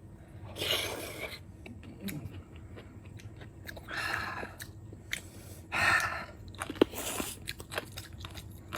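Close chewing and mouth noises of a person eating, with four louder noisy bursts and scattered small clicks.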